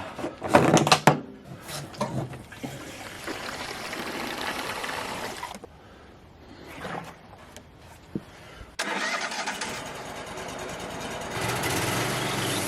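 A few loud knocks, then the Wood-Mizer LT35 sawmill's engine starts abruptly about nine seconds in and runs, stepping up in speed about two seconds later and holding steady.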